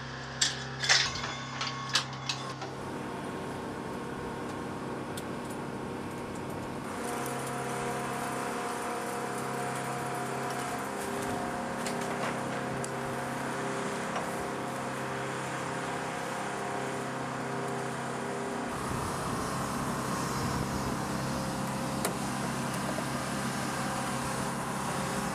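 Steady machinery hum on an airfield flight line, made of several held tones over a hiss, with a few sharp clicks and knocks in the first two seconds.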